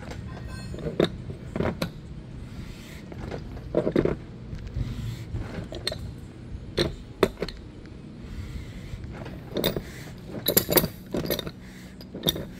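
Large pipe wrench clicking and clanking against a submersible well pump's head held in a bench vise, in repeated strokes as the reverse-threaded head is turned loose. A quick run of sharp metallic clinks comes near the end.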